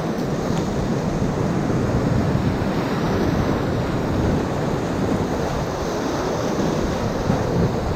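Whitewater of a Class IV rapid rushing steadily and loudly around a raft surfing in it, with uneven low buffeting on the microphone.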